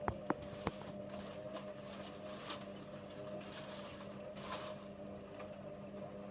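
Hotpoint WMA34 front-loading washing machine in its main wash, the drum turning and tumbling the wet load: a steady motor hum with soft swishes of water and clothes, and a few sharp clicks near the start.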